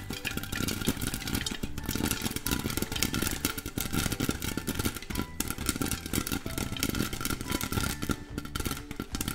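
Popcorn kernels popping in hot oil in a lidded pan, a dense, rapid stream of pops over the sizzle of the oil.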